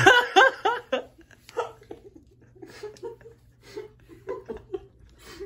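A person laughing: a quick run of about five pitched 'ha' pulses in the first second, then scattered softer laughs and breaths.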